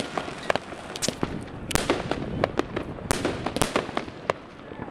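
Many fireworks and firecrackers going off all around in a dense, irregular string of sharp bangs and cracks, some loud and close, others fainter.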